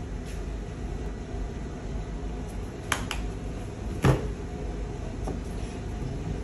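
Steady low rumble of a commercial kitchen extractor hood, with two light clicks about three seconds in and a sharper knock about a second later.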